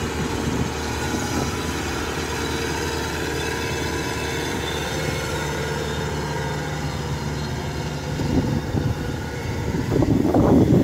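Kubota DC-105X combine harvester's diesel engine running steadily under load while it cuts and threshes rice, a continuous mechanical drone. Louder, uneven rumbles come in near the end.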